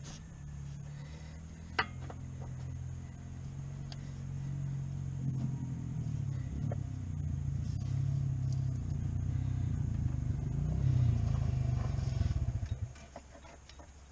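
A motor vehicle's engine running, growing louder over about twelve seconds and then cutting off abruptly about thirteen seconds in. A single sharp click comes near two seconds in.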